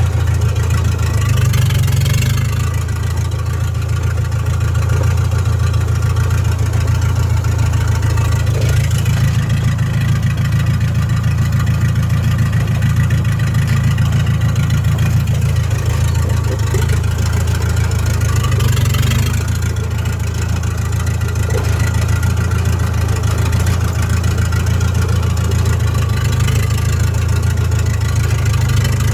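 S-651 crawler bulldozer's diesel engine running steadily, with a deep drone that swells briefly about two seconds in and again near the nineteen-second mark.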